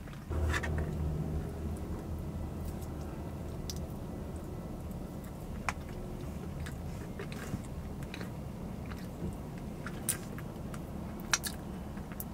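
A person chewing a mouthful of frosted cinnamon roll with the mouth closed, with a few sharp wet smacks as sticky fingers are licked near the end. Under it runs a low hum that comes up about half a second in.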